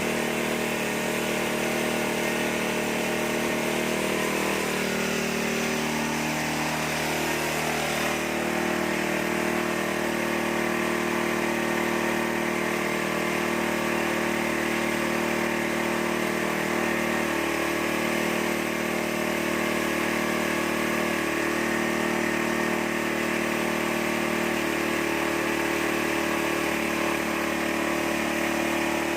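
Engine-driven corn-cracking machine running steadily at constant speed.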